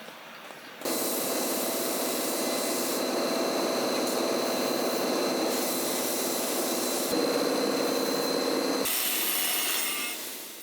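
A power tool running steadily as it abrades the old hammer during restoration. The noise starts about a second in and fades away near the end.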